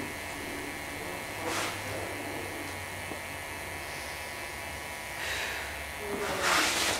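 Three soft, breath-like exhales, one about a second and a half in and two close together near the end, the last the loudest, over a steady electrical hum. The investigators claim the breathing is not the cameraman's.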